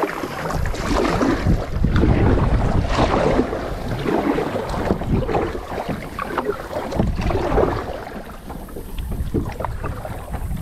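Kayak paddle strokes dipping and splashing in the water, repeated every second or two, with wind buffeting the microphone.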